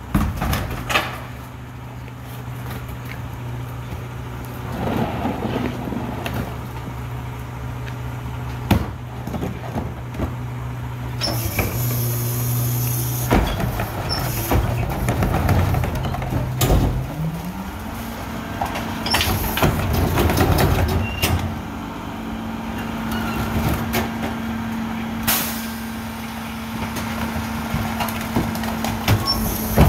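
Rear-loader recycling truck idling with its diesel engine, then speeding up to a higher steady pitch a little past halfway as the hydraulic tipper lifts and empties recycling carts into the hopper. Plastic carts clatter and bang against the tipper, and there is a hiss of air about a third of the way in.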